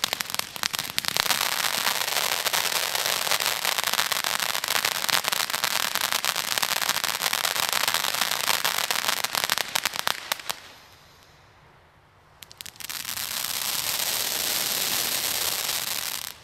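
Consumer firework fountains spraying sparks with a dense crackling hiss. The first fountain dies away about ten seconds in. After a short lull with a few pops, a second fountain hisses steadily and stops abruptly at the very end.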